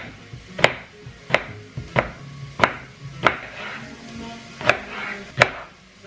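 Chef's knife chopping an aubergine on a wooden chopping board: about seven sharp knocks of the blade meeting the board, roughly one every two-thirds of a second, with a short pause about four seconds in.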